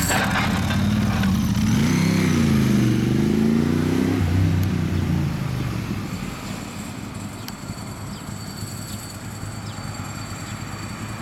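Ducati 998S Bayliss's L-twin engine through a Termignoni exhaust, pulling away under throttle. Its pitch rises, dips and rises again, then the sound fades after about five seconds to a lower, steady rumble as the bike rides off.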